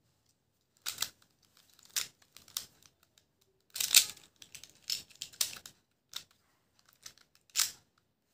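Plastic Pyraminx puzzle being twisted by hand: short clicking, rasping turns in irregular bursts, the loudest about four seconds in.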